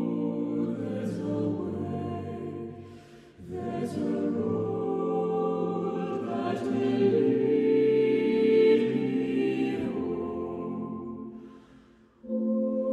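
Mixed-voice a cappella vocal ensemble of eight singers, men and women, singing a slow song in close harmony. A phrase dies away about three and a half seconds in and another near the end, and a new phrase begins just before the end.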